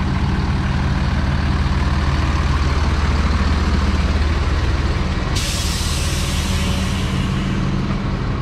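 Freightliner M2 truck's diesel engine idling steadily, with a sudden hiss of air from its air-brake system about five seconds in that fades off over a couple of seconds.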